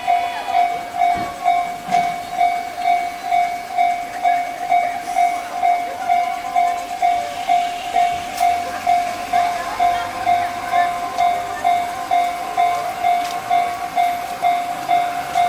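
Japanese railway level-crossing alarm ringing: an electronic bell striking steadily about twice a second, warning that a train is coming.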